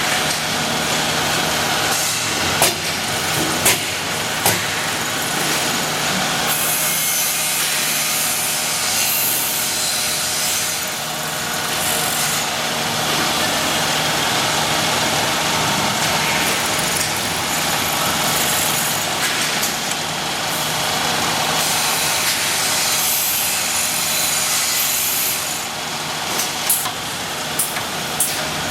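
Multi-spindle CNC drilling machine for iron running: a steady motor hum under a dense machining noise, with a few sharp clicks near the start and near the end.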